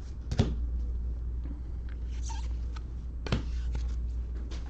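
Two sharp taps about three seconds apart over a steady low hum.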